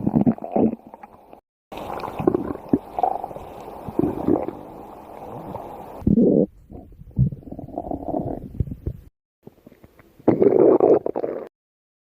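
Stomach growling sound effects: a string of separate gurgling rumbles played back to back. They are cut off abruptly into silence about a second and a half in, again around nine seconds in, and near the end.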